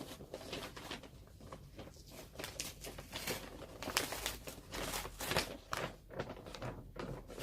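Brown paper wrapping being slowly peeled and unfolded off a packaged bag: irregular crinkling and rustling with scattered sharper crackles.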